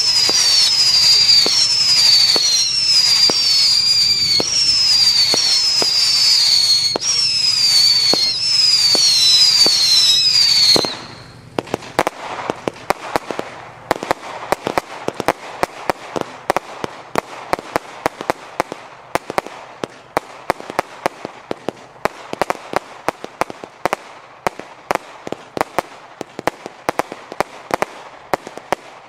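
Weco City of Heroes consumer firework battery firing. For about the first eleven seconds it is loud: a quick run of shots, each with a falling whistle, over continuous crackling. Then the whistles stop and a quieter, dense string of sharp pops and crackles runs on.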